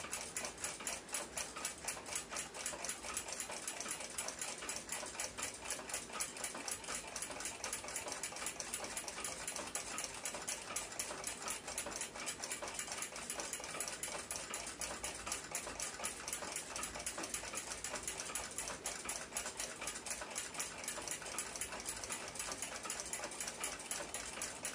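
Fast, steady ticking of a running clock, many ticks a second, with no break.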